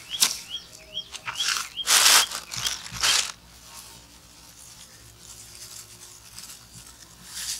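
Thin plastic bag rustling and crinkling in several short bursts over the first three seconds, the loudest about two seconds in, as it is handled over a bowl of fish. Short high chirps sound in the first second and a half.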